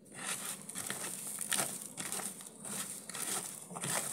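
A hand squeezing and rubbing sliced bitter melon with coarse salt in a plastic colander: a continuous gritty, crunchy rustle that swells and eases with each squeeze. This is the salt being worked in to draw out the melon's bitter sap.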